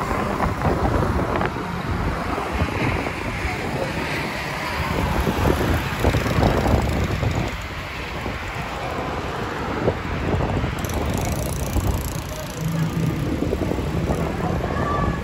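Wind buffeting the microphone over the steady noise of road traffic.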